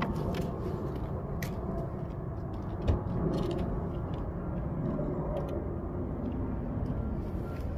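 Steady low vehicle rumble, with a single thump about three seconds in.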